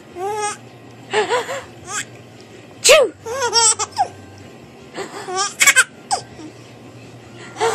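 Baby laughing in a string of short, high-pitched giggling bursts, set off by fake sneezes.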